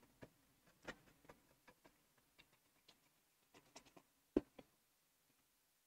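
Faint, scattered clicks of a stylus tapping and sliding on a drawing tablet while erasing, with one sharper tap about four and a half seconds in.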